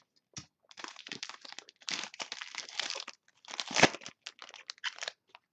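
Trading-card pack wrapper crinkling and rustling in irregular crackles as the freshly cut pack is handled and its cards are slid out, with a sharper crackle a little before the end.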